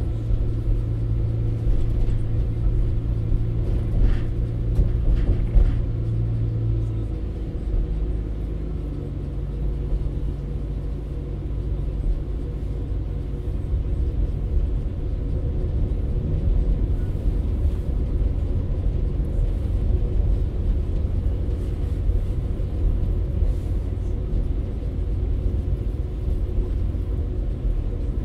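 Interior sound of a Class 196 CAF Civity diesel multiple unit under way: a steady low rumble of its underfloor diesel engine and running gear. The engine's note changes about seven seconds in.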